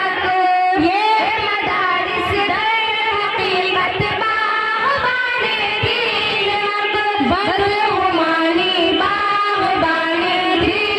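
A group of girls singing a tarana, an Urdu school anthem, into microphones, with long held notes that glide between pitches.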